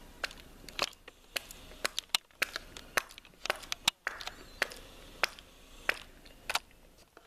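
Sharp, irregular clicks or taps, roughly two or three a second.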